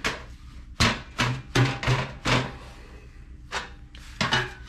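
Steel exhaust pipe sections being pushed together and fitted by hand, knocking and clanking metal on metal: about five sharp knocks in quick succession in the first half, then two more near the end.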